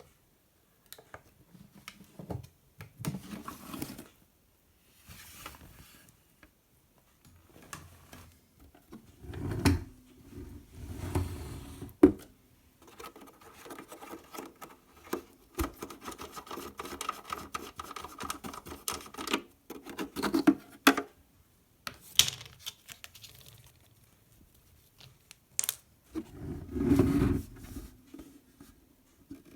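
Handling noises: irregular clicks, knocks and rubbing, with a few louder thumps and one sharp click about twelve seconds in.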